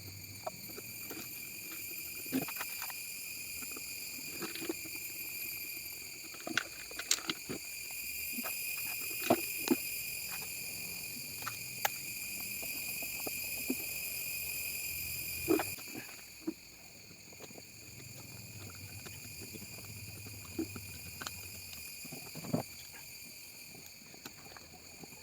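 Scattered light clicks and knocks over a steady high-pitched hum, which drops away about sixteen seconds in.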